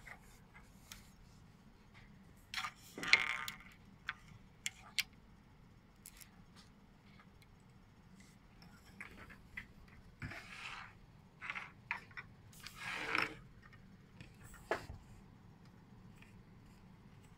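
Handling noises from a T8 LED tube being taken apart by hand: scattered light clicks and short scrapes and rustles of its parts, the loudest about three seconds in.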